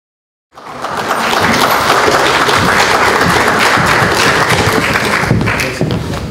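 Audience applauding: a dense, steady clapping that starts suddenly about half a second in and thins out near the end.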